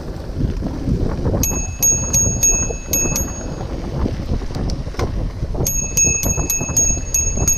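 Bicycle bell ringing in quick repeated dings, a run of about seven for two seconds, then again from near the end, over wind buffeting the microphone and the rattle of a mountain bike rolling down a dirt trail.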